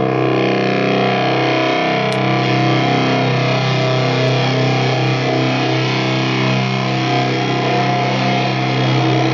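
Electric guitar playing a loud noise drone: a low note held steady under a thick wash of overtones that keep shifting.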